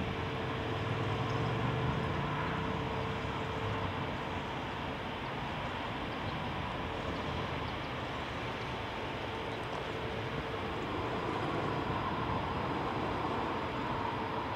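Eurofighter Typhoon's twin EJ200 turbofans running at idle as it taxis: a steady rush with a thin whine held underneath.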